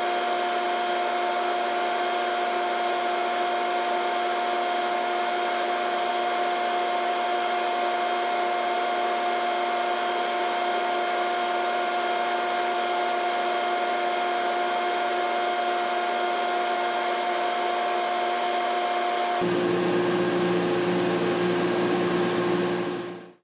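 A steady electric-motor whir with a constant whine over a noisy hiss. About 19 seconds in the sound changes abruptly to a lower hum, then it fades out near the end.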